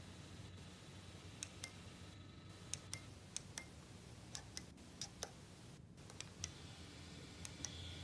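Push buttons on a conference-table microphone control panel clicking, pressed and released in quick pairs about seven times over a faint steady hum.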